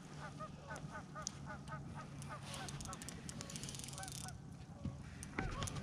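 A flock of geese honking, many short overlapping calls several times a second. Fast fine ticking runs through the middle, and there is a sharp knock near the end.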